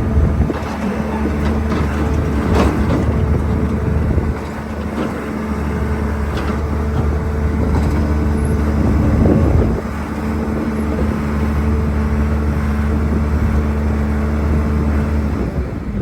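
John Deere 310D backhoe loader's diesel engine running steadily as the machine is worked, with its level shifting a few times and a few sharp knocks.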